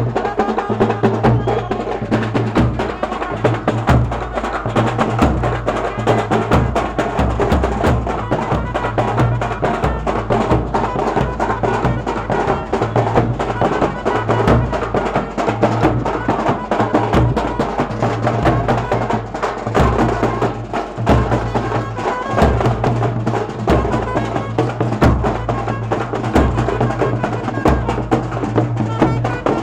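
Music with fast, busy percussion over a low bass line that holds each note for a second or so, running without a break.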